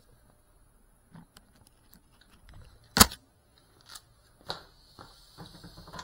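Scattered faint knocks and rustles, with one sharp, loud click about three seconds in, over a faint steady high hiss.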